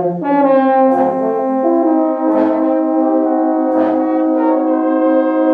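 Brass band, tubas among the players, playing slow, sustained chords that move to a new chord every second or so.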